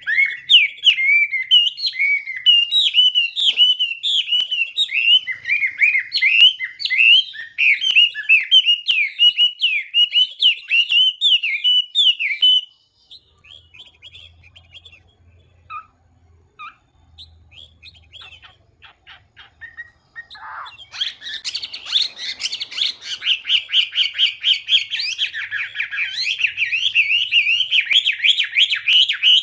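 Chinese hwamei singing a fast run of varied notes that rise and fall in pitch. It falls almost silent for several seconds near the middle, then resumes in a dense, rapid stream.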